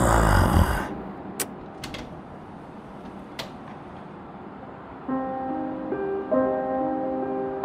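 A heavy thud with a short rattling wash, a sound effect of a closet's false back wall being forced open, dying away within a second, followed by a few sharp clicks. About five seconds in, slow, sustained piano music comes in.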